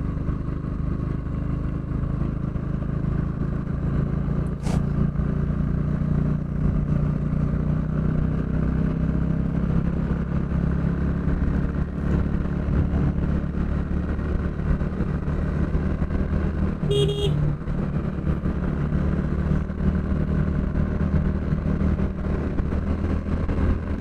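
Bajaj NS 160's single-cylinder engine running steadily under load as the motorcycle climbs a ghat road in fifth gear. A short horn toot sounds once, about two-thirds of the way through.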